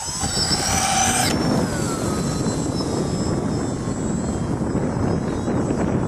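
Electric motor and propeller of an RC foam Extra 260 model plane whining at high throttle for takeoff, the pitch dropping back after about a second and a half. Gusty wind buffets the microphone throughout with a heavy low rumble.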